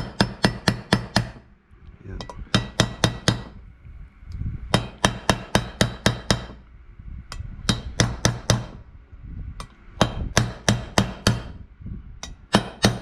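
Hammer tapping rapidly and repeatedly to drive a part into a two-stroke dirt bike's engine case, in runs of quick metallic strikes, about five a second, with short pauses between runs, until the part seats.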